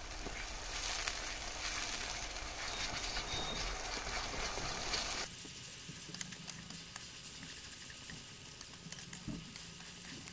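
Sliced onions sizzling in hot oil in a steel kadhai, stirred with a metal spatula that scrapes and clicks against the pan now and then. The sizzle drops abruptly to a quieter hiss about five seconds in.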